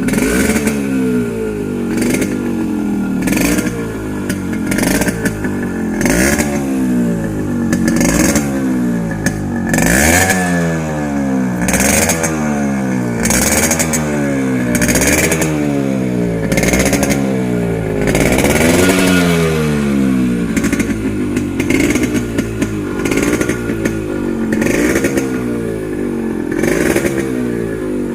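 Yamaha RX100's single-cylinder two-stroke engine revved over and over by hand throttle, each blip rising and dropping back about every one and a half seconds, with sharp cracks from the exhaust as the throttle snaps shut.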